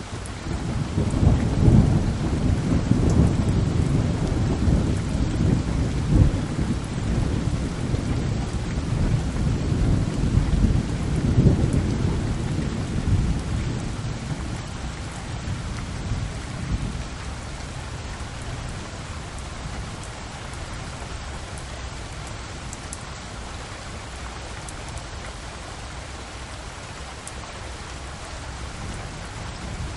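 Wind buffeting the microphone: a gusty low rumble over a steady hiss, strongest in the first half and then settling.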